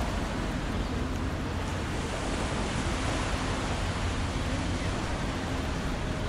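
Steady rush of wind and river water with a low steady hum beneath it from a large container ship passing close by.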